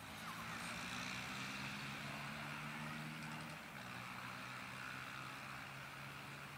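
Three-engined McDonnell Douglas MD-11F freighter's jet engines running at low power as it taxis: a steady hum with a hiss over it, the hum shifting slightly a little over halfway through.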